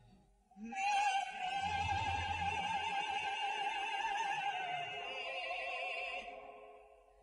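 Soprano and baritone singing an operatic farewell duet with orchestra. After a brief hush, the soprano holds one long high note with a wide vibrato for about five seconds, then the sound fades away near the end.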